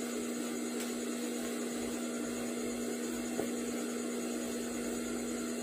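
Steady electrical hum with a faint hiss underneath, likely from a motor or mains hum, with one small tick about three and a half seconds in.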